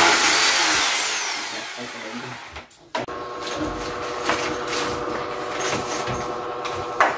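Handheld power drill running at high speed, then released and winding down, its whine falling and fading over about two seconds. Later, a steady hum with a few short knocks.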